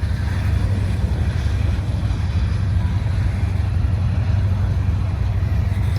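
Diesel freight locomotive running, a steady low rumble.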